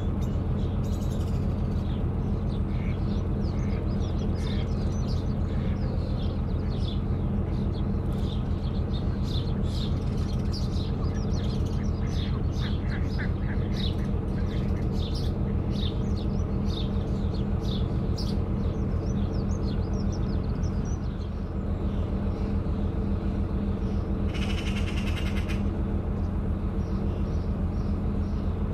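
Narrowboat engine running steadily at a slow cruise, an even low chugging thrum, with songbirds chirping and singing over it for much of the time and a brief louder call near the end.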